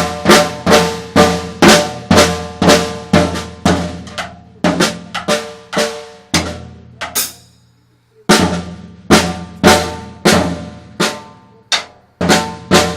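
A toddler banging on a drum kit, loud separate strikes on the drums about twice a second, each left ringing. The hits stop briefly about eight seconds in, then start again.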